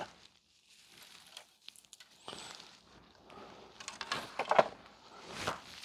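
Faint handling noise from an electronics board being moved on a workbench: a few small clicks about a second and a half in, then light rustling and soft knocks.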